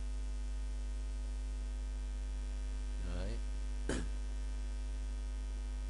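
Steady electrical mains hum with its overtones. There is a brief voice sound about three seconds in and a single sharp click just before four seconds.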